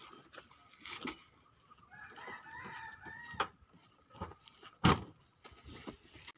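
A rooster crowing once, a call of about a second and a half, with a few sharp knocks around it, the loudest about five seconds in.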